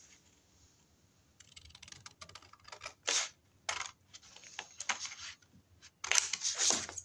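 Scissors snipping through cardstock: a run of short clicking cuts starting about a second and a half in, with two louder snips about halfway through, then a louder stretch of paper handling near the end.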